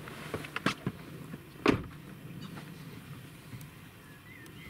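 Pickup truck door (Toyota Hilux) being pulled shut with a single loud thump, after a few clicks and rustles from handling gear inside the cab.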